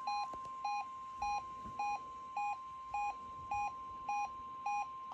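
A weather alert radio receiver beeping its alarm, nine short beeps a little over half a second apart. Under the beeps is a steady tone just above 1 kHz, which fits the NOAA Weather Radio 1050 Hz warning alarm tone sent to set off such receivers.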